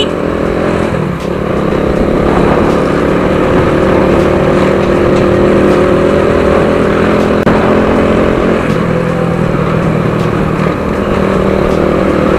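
Motorstar Idol 110 motorcycle's 110cc engine running under way, heard from the rider's seat with road and wind noise. The engine note dips about a second in and changes pitch again around nine seconds in.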